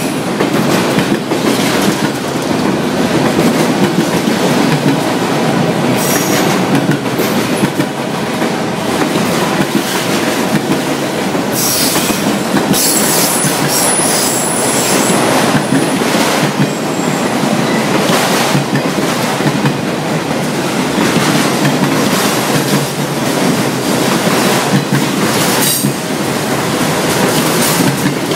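CSX freight train of autorack cars rolling past close by: steady rumble and clatter of steel wheels over the rail, with high-pitched wheel squeal coming in about twelve seconds in and lasting a few seconds.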